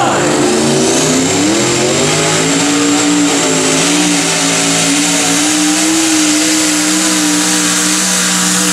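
Twin-turbocharged pulling truck engine at full throttle under load, pulling a weight-transfer sled. The revs climb over the first two seconds or so and then hold at a steady high pitch. A high whine climbs at the start and then holds.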